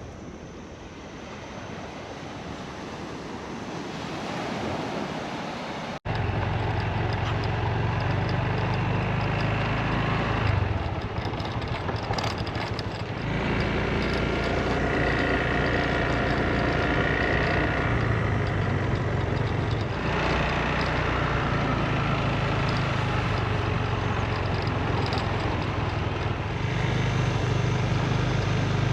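Surf and wind noise for the first few seconds, then an abrupt switch to a motor scooter's small engine running steadily while riding, with wind rushing past.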